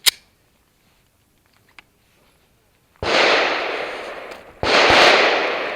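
Two gunshots about a second and a half apart, each a sudden bang with a long echoing tail. A sharp click comes right at the start.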